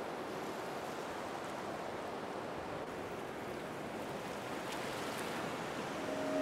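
Sea surf washing steadily on rocks. A sustained, steady tone with several pitches starts just before the end.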